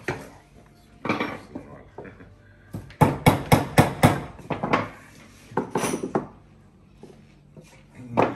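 Hand tools knocking and clattering on a work table, with a quick run of about six sharp knocks about three seconds in.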